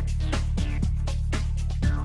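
Soundtrack music: sustained low bass notes under an even beat of sharp percussion hits, about four a second.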